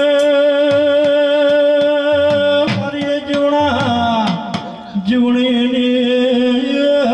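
Live Gujarati devotional folk music of a Ramel: long held melodic notes with a slight waver over light drum strokes. The held note breaks off about two and a half seconds in, slides through a short gliding passage, and settles on a held note again about five seconds in.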